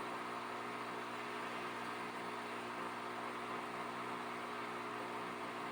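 Steady airflow hiss with a low electrical hum from the hot-air heating equipment warming up the circuit board, running evenly without change.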